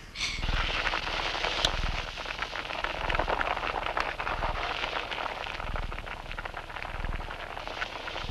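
Food sizzling and crackling in a metal pan over a cooking fire, a dense, steady crackle.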